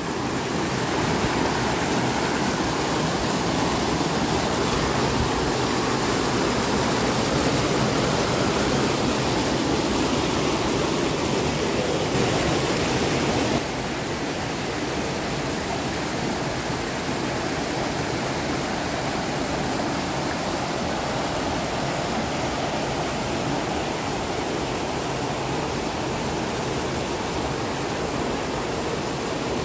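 Small waterfall on a mountain stream: a steady rush of water pouring over rocks. It drops a little in level suddenly about halfway through.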